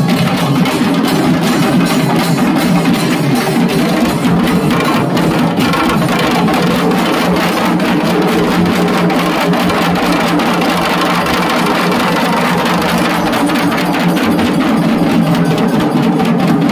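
Bengali dhak drumming: large dhak barrel drums and small neck-slung drums beaten with thin sticks, playing fast, dense and loud without a break.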